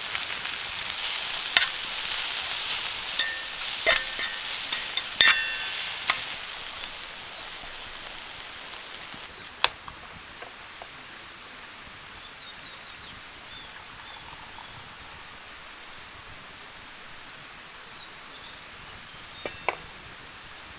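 Meat and vegetables sizzling in a frying pan on a camping gas stove, with metal tongs clicking against the pan as the food is stirred. About nine seconds in, the sizzling cuts off and only faint outdoor background remains, broken by a few sharp clicks, two of them close together near the end.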